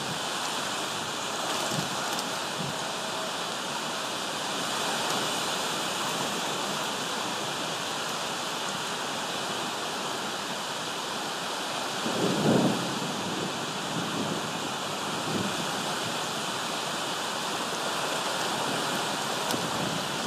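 Steady hiss of rain and wind during a thunderstorm, picked up by a phone microphone, with a brief low rumble about twelve seconds in.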